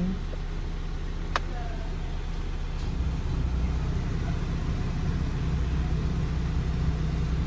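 Nissan Sentra B14's engine running steadily after being brought back from a crank-but-no-start fault, its low hum growing stronger about three seconds in. A single sharp click about a second and a half in.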